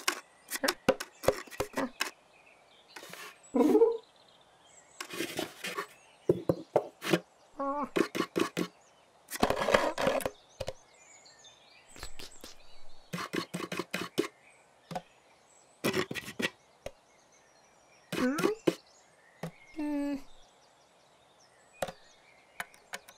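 Cartoon cat sound effects as it climbs a tree and scrambles onto a wooden bird box: a string of short knocks and scratches mixed with the cat's brief voiced grunts and mews, one sliding up and down in pitch near the end.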